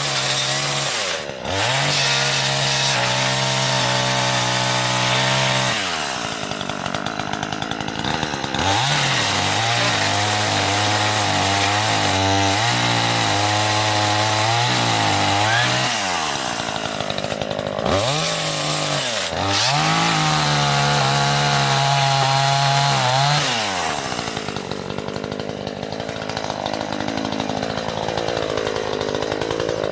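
Gas chainsaw cutting fallen branches. It revs up, holds high, then drops and recovers several times as the chain bites into the wood, with a few brief dips toward idle.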